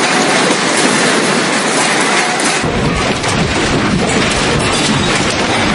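Loud, steady rushing roar of tsunami floodwater, with a deeper rumble joining about two and a half seconds in.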